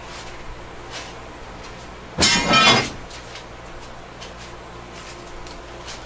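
A short hiss of compressed air about two seconds in, lasting about half a second, as the air line is hooked up and the PEX-crimped air hose is pressurized to about 90 to 100 psi.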